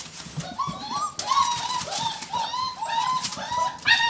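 Several German shepherd puppies whining and squeaking at once, a steady stream of short, high-pitched, overlapping calls that rise and fall.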